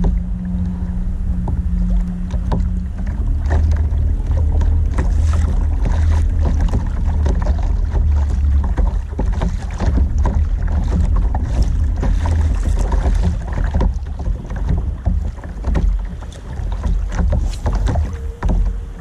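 Wind buffeting the microphone on a fishing kayak at sea: a heavy, steady low rumble with water splashing and lapping against the plastic hull in small crackling spatters.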